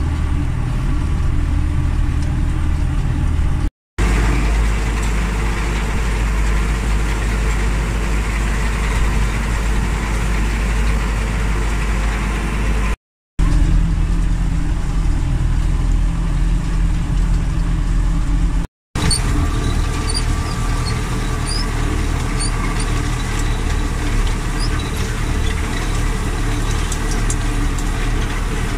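Belarus 920.3 tractor's four-cylinder diesel engine running steadily under load as it pulls a rotary hay rake, in several short clips joined with brief breaks of silence.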